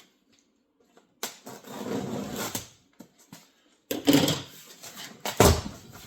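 Cardboard shipping box being worked open: a scraping, rustling stretch of cardboard, then sharper handling knocks and one heavy thump near the end.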